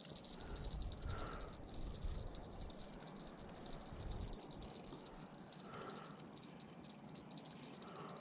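Insects trilling steadily: one continuous high-pitched trill with a fast pulse.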